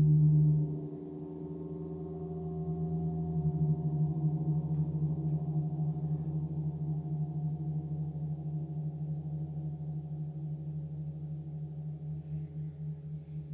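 A 30-inch TTE KongKlang Earth gong sounding a steady low hum with ringing overtones, played with a flumi friction mallet. The tone eases off about a second in, swells again a few seconds later, then slowly dies away.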